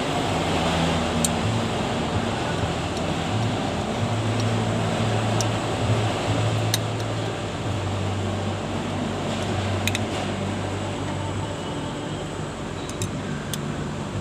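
Welding machine running: a steady fan-like whir with a low hum that comes and goes every few seconds, and a few sharp clicks.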